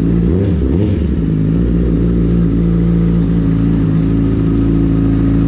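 Honda CBR1000RR SP's inline-four engine idling steadily through its Yoshimura exhaust. The pitch wavers briefly about half a second in.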